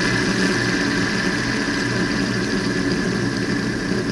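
Fidget spinner whirring steadily on its bearing, with a constant high tone over a low hum.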